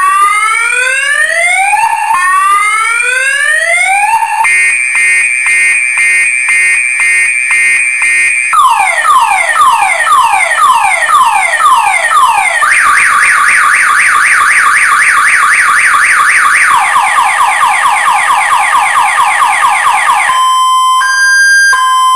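Car alarm siren cycling through its tone patterns: two slow rising whoops, then a fast warbling trill, a run of rapid falling sweeps, a faster warble and more rapid sweeps, and near the end steady two-note beeping.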